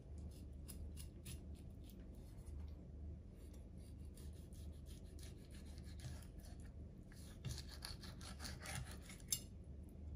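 A knife blade slicing along a raw mackerel fillet on a plastic cutting board, cutting away the bones. It makes a faint run of rasping, scraping strokes and small clicks, busier in the second half, with one sharper click near the end.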